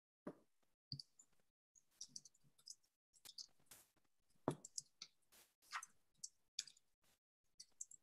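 Faint, irregular clicking and tapping of a computer keyboard and mouse, several soft clicks a second with short gaps between them.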